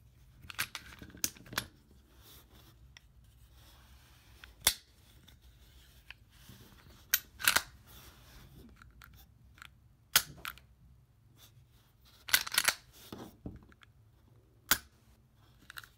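Smith & Wesson M&P Shield 9mm pistol being handled after reassembly: about ten sharp metallic clicks and clacks at irregular intervals, some in quick clusters, from its slide and parts being worked, with a click near the end as the trigger is pressed.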